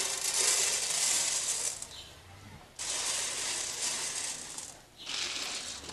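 Dried corn kernels poured onto a griddle, a dry rattling and hissing stream of kernels scattering across the surface. It comes in three spells with short pauses, about two seconds and about five seconds in.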